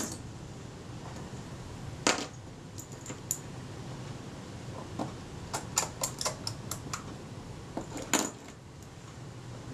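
Small, scattered metallic clicks and taps of a camera leaf shutter and its tiny screws being handled by hand, with a quick run of clicks around six seconds in and a sharper click near eight seconds.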